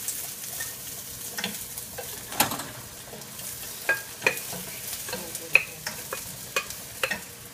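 Sliced vegetables going into a hot nonstick wok of sauce, sizzling steadily, with scattered sharp clicks and knocks as a wooden spoon scrapes them out of a glass bowl against the pan.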